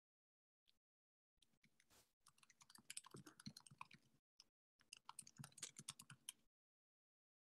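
Faint, rapid clicking in two runs, from about a second and a half in to four seconds and again from about five to six and a half seconds, with near silence around them.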